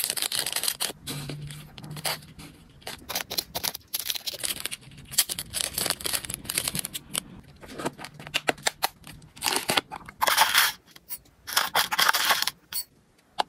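Close-up crinkling and crackling of a small plastic sachet handled by fingers, with many sharp little clicks. Near the end come two longer rattling rushes as dry hamster food pellets are scooped with a small metal spoon into a clear plastic box.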